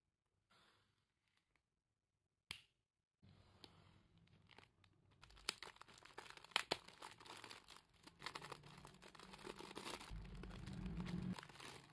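Thin clear plastic bakery bag crinkling as hands unwrap a hot dog bun. There is one sharp crackle about two and a half seconds in, then steady crinkling from about three seconds on, with many small crackles.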